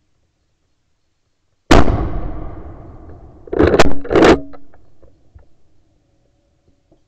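A single shot from a Blaser R8 hunting rifle, sudden and very loud, its report rolling away over about a second and a half. About two seconds later come two loud clacks in quick succession: the straight-pull bolt being worked to chamber the next round.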